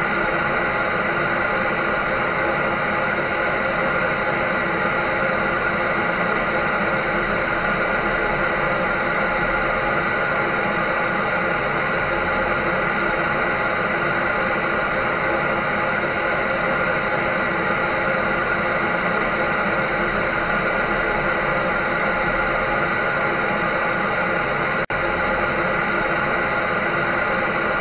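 An electric dryer running steadily: a constant whooshing hum with steady tones in it, cut by a very brief dropout about 25 seconds in.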